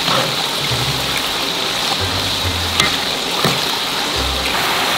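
Hot oil sizzling steadily as carabao meat deep-fries, with a few sharp pops, over background music with a low bass line.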